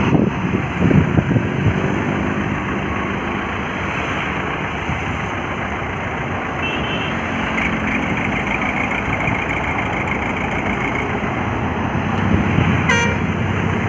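Heavy diesel engines running steadily under load as a crane tows a stuck, heavily loaded truck. A faint high-pitched beeping repeats in the middle, and a short sharp sound comes near the end.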